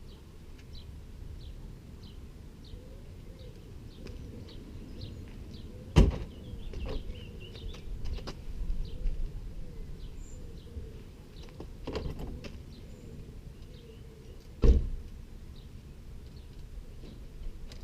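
Intermittent metallic knocks and clatter from taking the cables off a bicycle, with two sharp loud knocks about six seconds in and near the end and a weaker one in between. A bird chirps faintly and repeatedly in the background over a steady low rumble.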